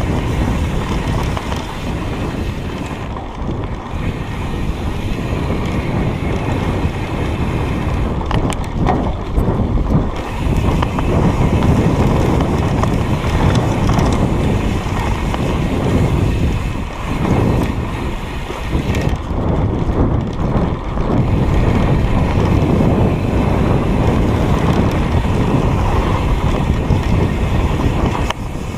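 Wind buffeting the microphone, with rattling and tyre noise from a bicycle riding a rough dirt trail. The noise rises and falls with the ground and has no engine note.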